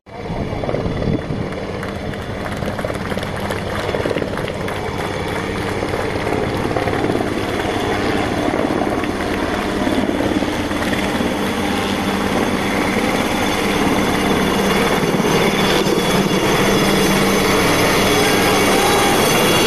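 Helicopter passing low overhead: steady rotor and engine noise that grows louder as it comes closer.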